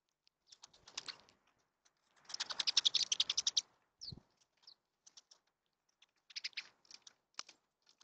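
Birds busy at a seed feeder right by the microphone, making runs of rapid clicking and fluttering. The second run is the loudest, at about a dozen clicks a second. A soft thump comes about four seconds in, with a few short chirps after it.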